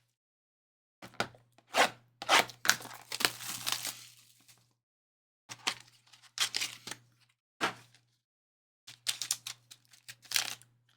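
A trading-card box being opened by hand: a short rush of tearing about two seconds in as the seal is torn off, with clicks and knocks of cardboard and packaging being handled before and after.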